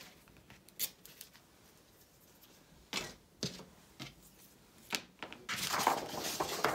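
A few separate light taps and clicks of hands handling paper and craft items on a cutting mat, then paper rustling and sliding from about five and a half seconds in as a large book page is lifted and moved.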